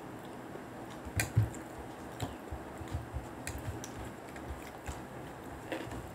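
Soft eating sounds at a table: small clicks and taps from fingers mixing rice on plates, and chewing, with one sharper knock and thud about a second in.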